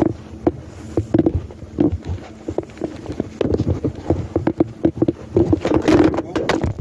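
Handling noise on a phone's microphone as the phone is moved about: irregular knocks, thuds and muffled rubbing, loudest about six seconds in.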